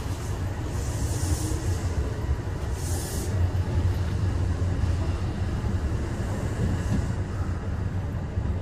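Kintetsu 8000 series electric train running, heard from inside the leading car: a steady low rumble with rail noise, and two short hisses about one and three seconds in.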